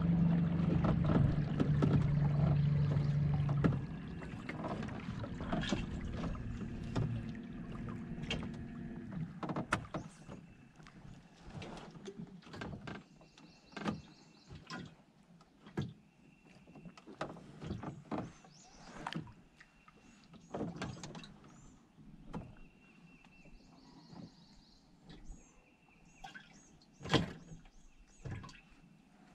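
A steady low motor hum that cuts off about four seconds in. Scattered knocks and clicks follow, with one louder knock near the end.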